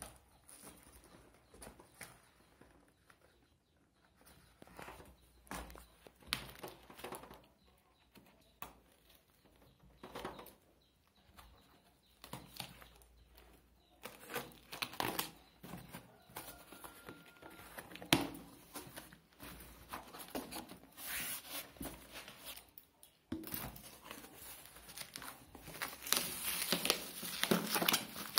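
Packing tape on a cardboard box being cut with scissors and torn, with scraping and rustling of the cardboard. In the last few seconds, crinkling of foil-backed bubble wrap being handled inside the opened box.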